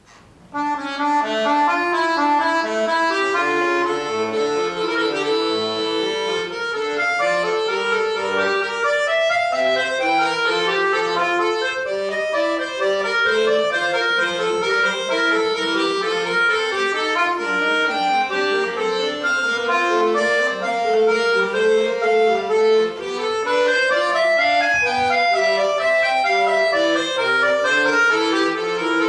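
Solo accordion playing a lively polka, a quick melody of short notes over a chordal bass, starting about half a second in.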